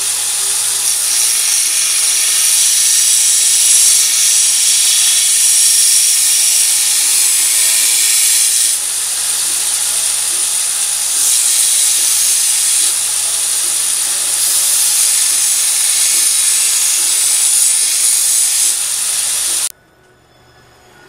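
Belt grinder running with a steel dagger blade held against the belt: a steady, high grinding hiss over a faint motor hum, swelling and easing as the blade is moved across the belt. It is grinding the borax residue off the hardened blade, and the sound cuts off abruptly near the end.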